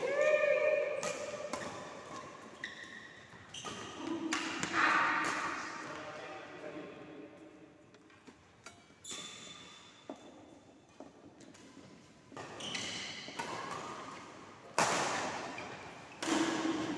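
Badminton rackets striking a shuttlecock during a rally: sharp, irregular hits about one to two seconds apart, each with a short echo.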